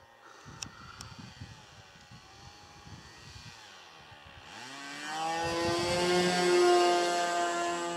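Radio-controlled model airplane's motor and propeller droning as the plane flies past overhead, growing louder from about halfway in and loudest a second or two before the end. Earlier there is only a faint low rumble and two light clicks.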